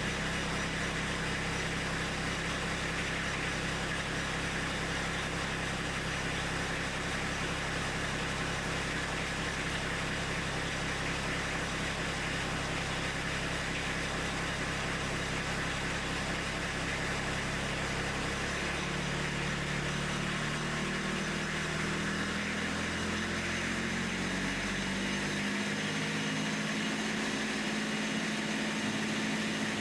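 Kubota B2601's three-cylinder diesel engine idling steadily while air is bled from its fuel system after the fuel filter was cleaned. About two-thirds of the way through, the engine note wavers and shifts for several seconds, then settles into a steady, slightly higher note.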